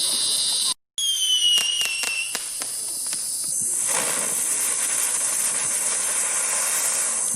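Consumer fireworks going off: a whistle that falls in pitch, with sharp crackling pops, about a second in, then a steady high hissing spray like a fountain firework.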